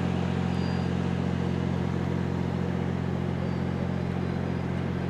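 An idling engine making a steady low hum that does not change.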